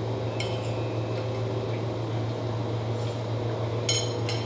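A metal spoon clinks against a plate about half a second in and twice near the end, with a brief ringing, over a steady low hum.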